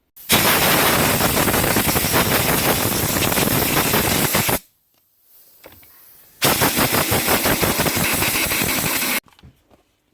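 Compressed-air blow gun blasting fibreglass dust out of the opened grinder's motor housing and brush holders: two long, loud hissing blasts with a rapid rattle through them, about four and three seconds long, with a short gap between.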